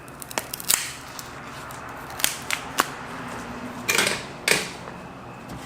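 Sharp clicks and clacks of hard laptop parts being handled during disassembly: a scattering of single clicks, then two louder clattery knocks about four seconds in.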